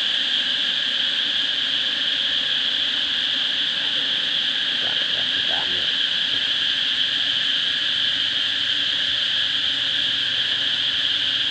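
Steady, high-pitched drone of insects in the woods, unbroken and even in level, with a fainter low hum beneath it.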